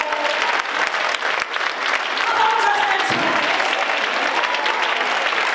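Church congregation applauding steadily, with a few voices calling out over the clapping.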